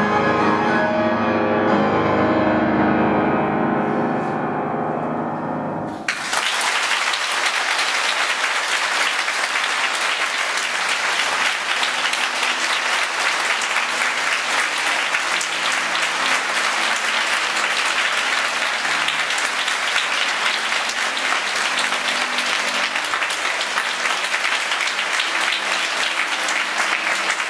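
Yamaha grand piano's closing notes ringing and fading away. About six seconds in, an audience breaks into applause that goes on steadily.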